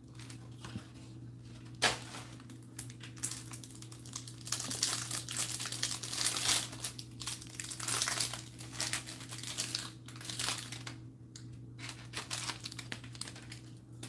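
Crinkling and tearing of the cardboard and wrapping of a trading-card hanger box being opened and the cards pulled out by hand, busiest in the middle, with a sharp tap about two seconds in.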